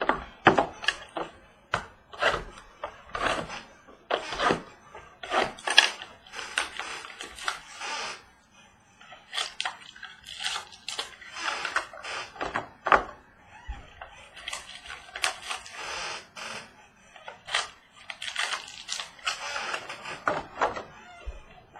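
Trading cards, cardboard and pack wrappers being handled: a busy run of crinkling, rustling and small clicks and scrapes, with a short lull partway through.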